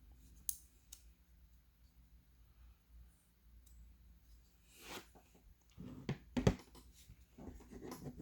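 Pocket knives and tools being handled by hand: two light clicks, then after a quiet stretch a rustle and a run of small clicks and knocks, the loudest about two-thirds of the way through.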